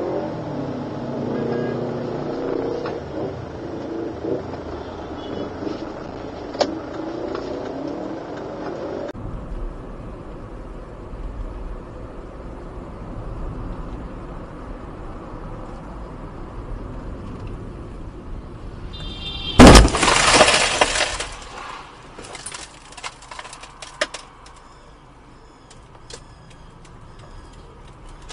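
Road collision heard from inside a car: steady road and engine noise, then a sudden loud crash with breaking and clattering that lasts about a second and a half, followed by a few scattered smaller knocks.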